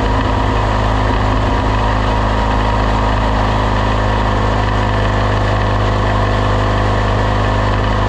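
Off-road race vehicle's engine running steadily at an unchanging pitch, a continuous even drone.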